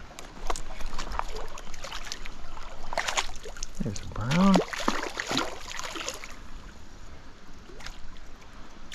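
Stream water running, with scattered splashes and knocks, and a short wordless vocal sound about halfway through.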